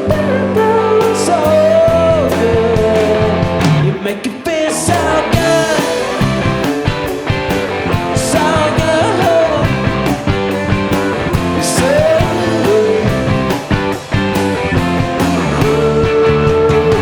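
Live rock band playing: electric guitar and drums, with a lead line bending in pitch over a steady beat, and a cymbal crash about every three and a half seconds.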